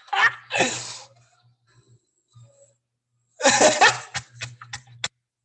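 A man laughing in two bouts, the second breaking into a few short bursts near the end.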